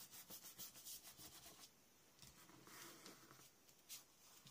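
Faint rustling and light taps of a sheet of paper being slid into place and pressed down onto a cardstock mat, busiest in the first second and a half, with a short rub around three seconds in and one click near the end.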